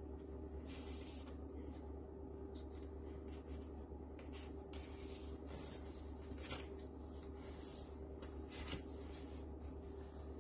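Paper rustling and sliding in irregular short bursts as the pages and paper tags of a handmade journal are handled and pulled from their pockets, over a steady low hum.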